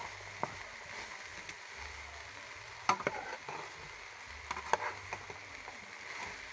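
Sliced okra sizzling as it fries in hot oil in a pot, stirred and turned so that it fries a little before the other ingredients go in. The stirring utensil knocks and scrapes against the pot several times, most sharply about three seconds in and again near five seconds.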